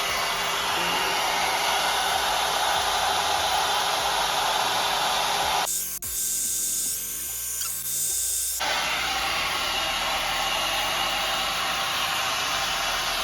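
Hot air brush (hair dryer brush) running steadily, a continuous rush of motor and blown air as it is worked through the hair at the roots. About six seconds in the sound thins out for roughly three seconds, then returns to full.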